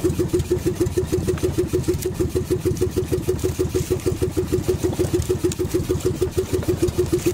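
Small fishing boat's engine running steadily at low speed with an even pulsing beat, about seven beats a second.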